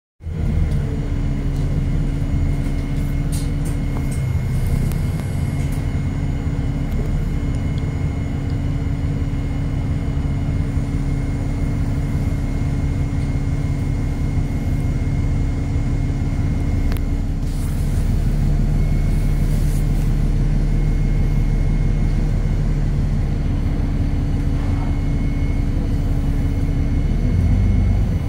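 Alexander Dennis Enviro400 E40D double-decker bus engine heard from inside the passenger saloon, a steady low drone with a thin high whine over it. Near the end the pitch starts to climb as the bus accelerates.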